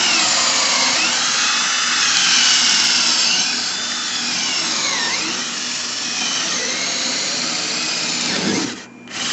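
Power drill boring a hole for the deadbolt, its motor whine wavering in pitch as the bit loads and frees up; it stops near the end.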